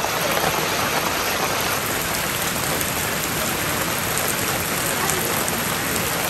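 Heavy rain falling steadily onto flooded paving, splashing into the standing water.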